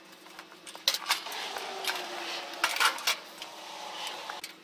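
Welded aluminum dock frame clanking and rattling as it is tipped over on sawhorses: a run of irregular light metallic knocks and clinks, with a faint scrape in the middle.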